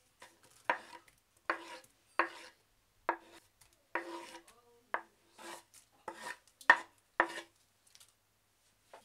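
Wooden chopping board knocking against an enamel wok as sliced onion and garlic are tipped off it onto raw chicken. About ten sharp knocks at uneven intervals, each with a short ring, the loudest a little before the end.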